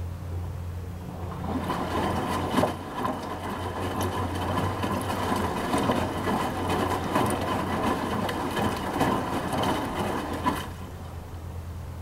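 Front-loading washing machine (Midea HealthGuard Smart 13 kg) drum tumbling a load of clothes in rinse water: sloshing and splashing with soft knocks. It starts about a second in and stops suddenly after about nine seconds, as the drum pauses between turns, over a steady low hum.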